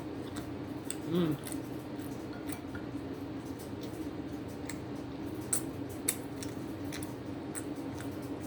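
Eating utensils clicking and scraping against food and its container, with two sharper clicks a little past the middle, over a steady low hum. A short hummed "mm" comes about a second in.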